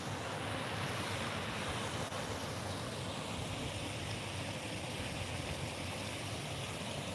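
A steady rushing noise, even throughout, with no distinct knocks or calls.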